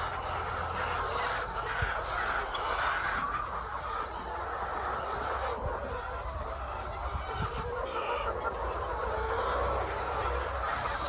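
Many laying hens clucking at once, a dense, continuous chatter of overlapping calls, over a steady low hum.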